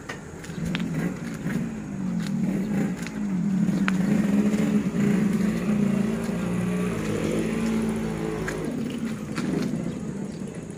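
A motor vehicle's engine running close by, its pitch wavering up and down. It grows louder through the middle and fades away near the end.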